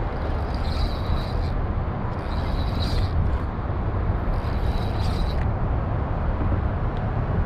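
Low, steady wind rumble on the microphone while a spinning reel is cranked close by, with a higher hiss that comes in spells of about a second, roughly every two seconds.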